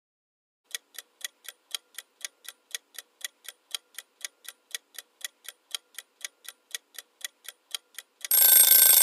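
Clock-ticking timer sound effect, about four ticks a second, followed near the end by a loud bell ringing for about a second: the countdown running out.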